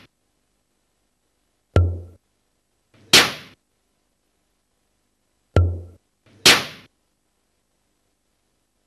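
A repeating pattern of two percussive hits with silence between them. First comes a sharp click with a deep thump and a brief ringing note, then about a second later a hissing, crash-like burst. The pair sounds twice, roughly every four seconds.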